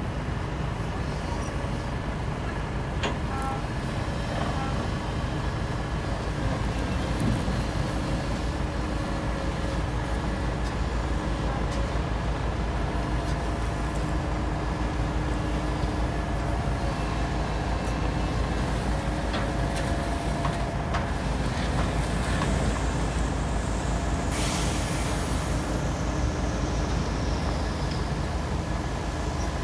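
Diesel engine of a Kobelco hydraulic excavator running steadily under load as it drags a steel sand-dredge barge. A short hiss comes about three-quarters of the way through.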